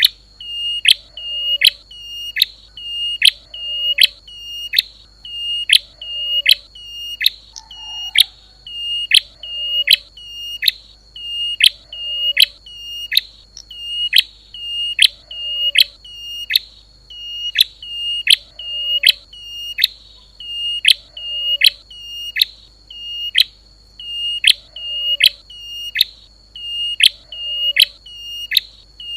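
Recorded prenjak lumut (klawu) call played as a bird-trapping lure: a fast, steady series of sharp, high down-slurred chirps, about two a second, over a constant high-pitched whine.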